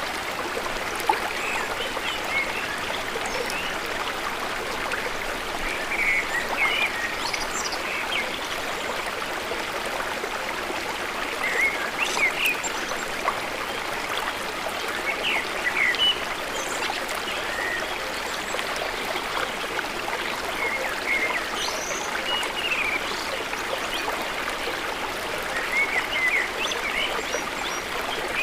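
Flowing water running steadily, with short high-pitched chirps scattered throughout.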